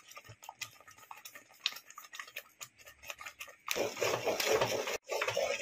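Wooden spoon stirring and scraping thick frying masala in an earthenware clay pot. Scattered light clicks at first, then a denser scraping about three and a half seconds in, broken briefly about a second later.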